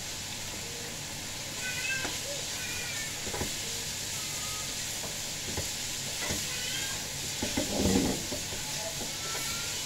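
Minced pork and holy basil sizzling in a wok over a gas flame while a spatula stirs and scrapes it, with a louder burst of stirring and tossing about eight seconds in.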